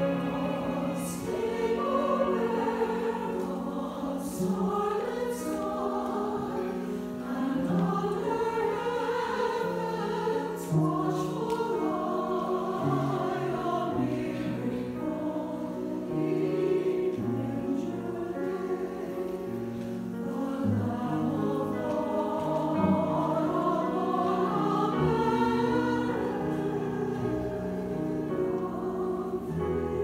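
Mixed choir of men's and women's voices singing a Christmas piece in sustained, changing chords, with a violin playing along.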